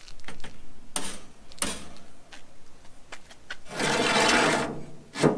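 Steel cooking grate clattering and scraping as it is handled and set back into a charcoal grill. There are a few knocks, then a long scrape about four seconds in, then a sharp metal clank near the end that leaves a brief ring.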